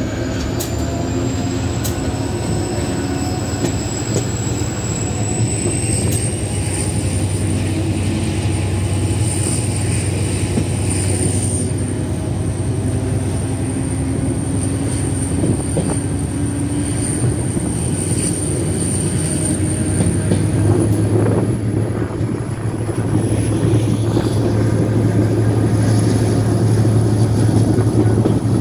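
Passenger train running along the track, heard from a coach window: a steady rumble of wheels on rails, with a thin high whine that climbs in pitch over the first few seconds and again about twenty seconds in. The train is a six-coach Materfer set hauled by a GM GT22 diesel-electric locomotive.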